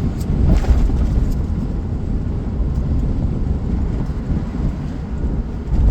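Car driving, its engine and road noise heard as a steady low rumble inside the cabin as it pulls through an intersection.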